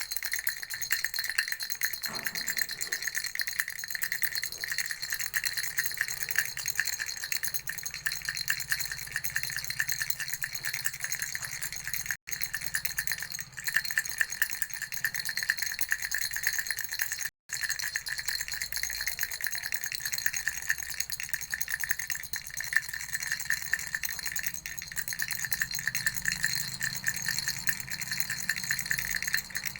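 Baby rattle shaken continuously: a dense, unbroken stream of rapid rattling clicks, with two very brief dropouts about twelve and seventeen seconds in.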